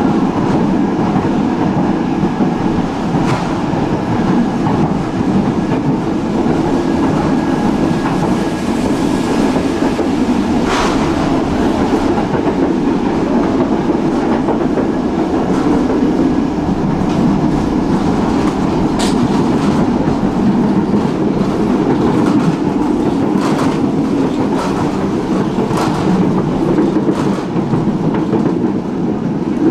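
Tram running along the track, heard from inside the car: a loud, steady rumble of wheels on rail, broken by a handful of sharp clicks over the rail joints. A faint high whine sounds through the first several seconds and then fades.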